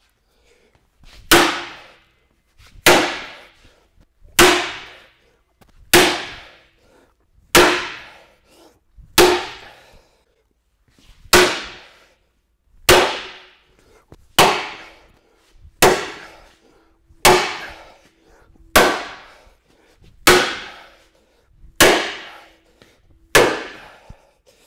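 A sledgehammer striking a heavy motorcycle skid plate again and again, about fifteen blows roughly one and a half seconds apart. Each blow is a sharp clang that rings and dies away, with a faint metallic ring hanging on between some of the later blows.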